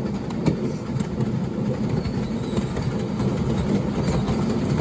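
Miniature railway train running behind a steam locomotive, heard from a riding carriage: a steady rumble of wheels on the rails, with a sharp click about half a second in.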